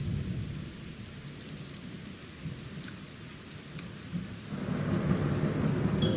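Low rumble like distant thunder over a faint rain-like hiss with scattered light ticks, growing louder and fuller about four and a half seconds in.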